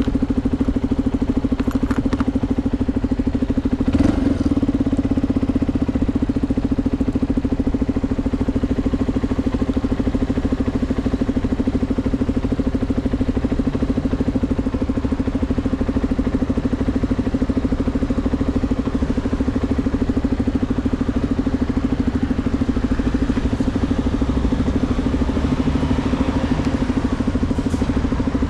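CFMoto 250NK single-cylinder engine running through a full Akrapovič exhaust, holding a steady, even pitch. There is a brief click about four seconds in.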